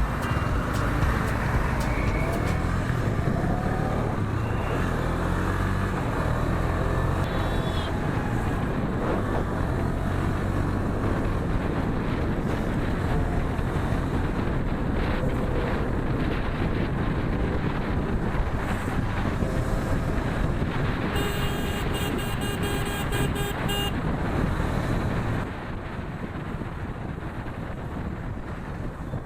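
Riding noise on a KTM Duke 250 motorcycle: its single-cylinder engine running under way with road and wind noise. A horn sounds for about three seconds about three-quarters of the way through, and the noise drops shortly after.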